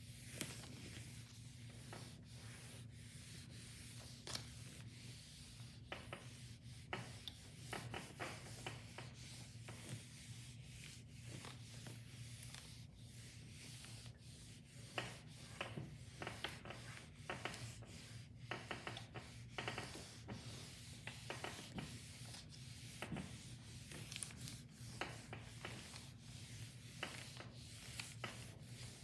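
Electric iron and hands sliding over a paper covering sheet, a run of short, irregular dry rubbing and rustling strokes, as the painting is heat-pressed onto silicone mounting film. A faint steady hum sits underneath.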